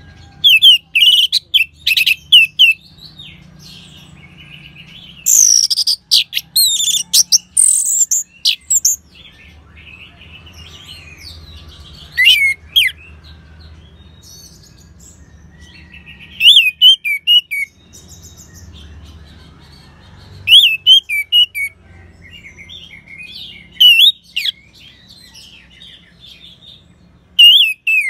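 Orange-headed thrush (anis merah) singing in about seven short, loud bursts of quick, varied high whistled phrases, separated by pauses of a few seconds.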